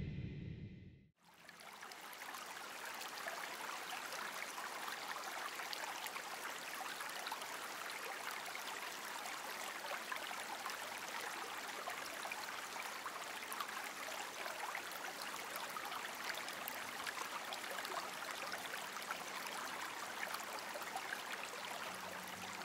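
Background music fades out in the first second; then water trickles and splashes steadily over the stone steps of a water feature.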